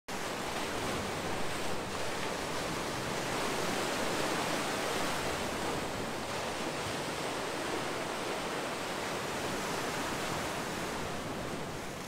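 Sea surf breaking and washing in along a rocky shore, a steady rushing wash with gentle swells in loudness.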